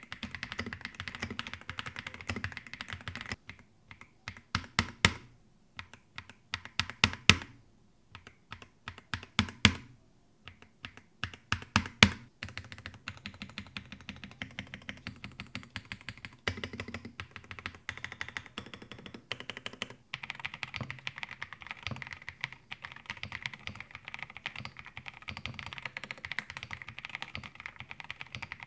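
Typing on the Akko MonsGeek M1 V5, an aluminium-cased 75% mechanical keyboard with lubed linear switches, PBT keycaps and multi-layer internal foam, giving a deep 'lok lok' sound without ping or ringing. Fast continuous typing gives way after about three seconds to slower, separate key strikes, some much louder, then returns to steady fast typing about twelve seconds in.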